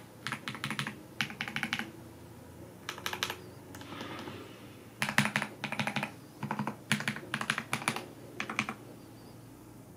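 Typing on a Skyloong GK104 Pro mechanical keyboard with factory-lubed KTT Rose silver linear switches: quick runs of keystrokes in bursts, with pauses at about two seconds in, around four seconds, and near the end.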